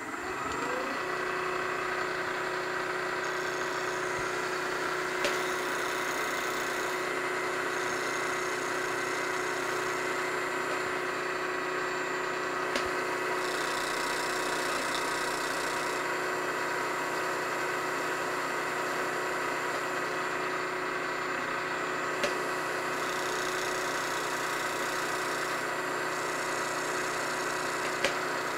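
Milling machine spindle spinning up with a rising whine, then an end mill steadily facing the top of a cast metal steam-engine base, its steady whine mixed with cutting noise and a few sharp ticks.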